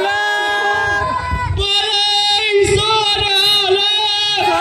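A high voice singing long, drawn-out notes that slide and waver in pitch, loud and steady throughout.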